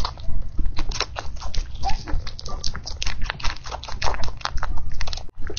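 An animal chewing crunchy food: quick irregular clicks and crunches, with a few short squeaks.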